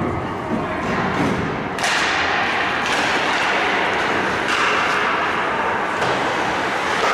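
Ice hockey game play with steady, noisy rink sound and a sharp thud about two seconds in.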